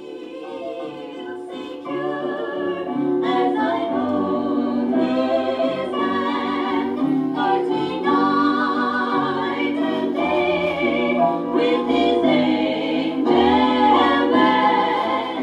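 Califone 5J-7C portable record player playing a vinyl record of a choir singing. The volume comes up over the first two seconds, then holds steady.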